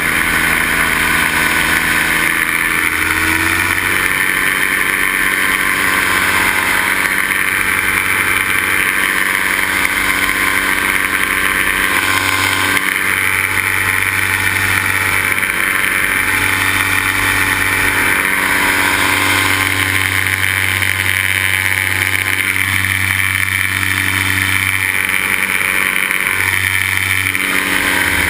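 Paramotor engine and propeller running steadily at high power, with a slight rise in pitch about three seconds in.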